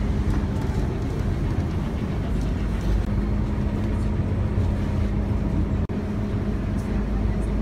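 Engine and road noise inside a moving city bus: a steady low rumble with a constant hum. The sound cuts out for an instant about six seconds in.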